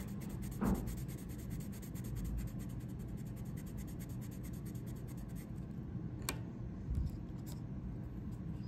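Orange coloured pencil scratching on paper in rapid back-and-forth colouring strokes, stopping about two-thirds of the way through. It is followed by a few light clicks and a soft knock.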